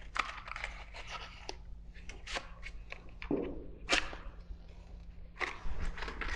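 Matches being handled and struck against a matchbox: a series of short scratchy strikes and rattles, the loudest about four seconds in. A faint steady low hum lies underneath.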